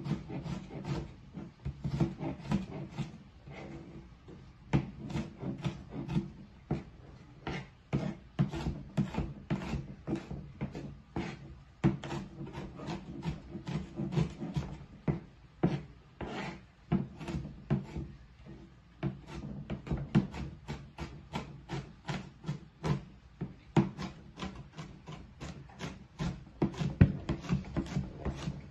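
Chef's knife mincing onion on a plastic cutting board: a steady run of sharp knocks as the blade strikes the board, a few a second, with short lulls.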